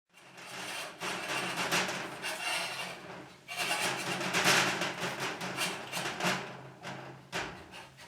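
The round handle bar of a chainsaw mill scraping and knocking as it is slid through holes in the mill's frame. There are two spells of rubbing with a brief pause about three and a half seconds in.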